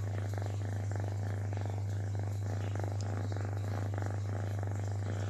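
A cat purring steadily in rhythmic pulses, close by, while its chin is stroked, over a constant low hum.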